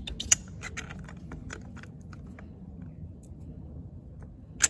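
Small sharp metal clicks and light scraping as a steel differential cross shaft is pushed by hand through the carrier and Lokka locker. A sharp click comes about a third of a second in, a few fainter ticks follow, and another sharp click comes near the end.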